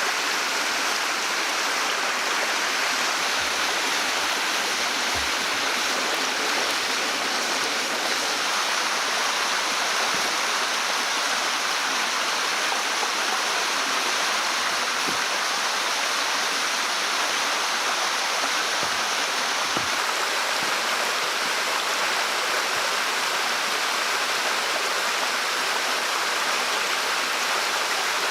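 Steady rushing of running water, with a few faint low thuds underneath.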